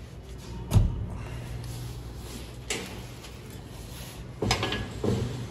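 A door being opened and shut, with a loud thump about a second in and a few lighter knocks and clatters near the end.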